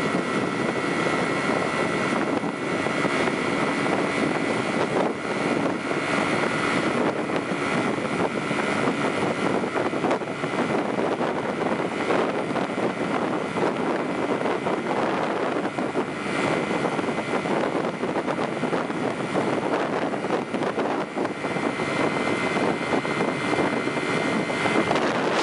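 Steady running noise of a moving vehicle, a continuous rush with a faint steady whine over it.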